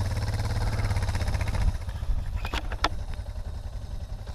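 Single-cylinder dual-sport motorcycle engine idling steadily, with a couple of short sharp clicks about two and a half seconds in.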